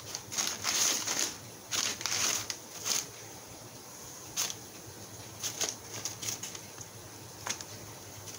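Brown kraft packing paper crinkling and rustling as a cat burrows and shifts about in it inside a cardboard box: a quick run of rustles in the first three seconds, then a few scattered single crinkles.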